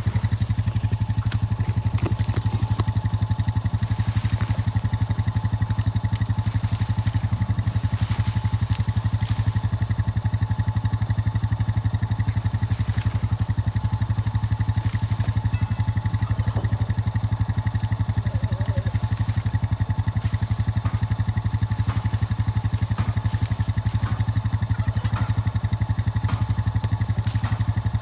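A vehicle engine running steadily at a constant speed, a low even hum with a fast pulse, with a few faint clicks and clatter over it.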